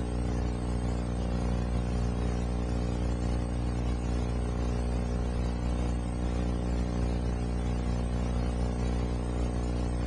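Steady low machine hum with a buzzing edge over a background hiss, unchanging in pitch and level.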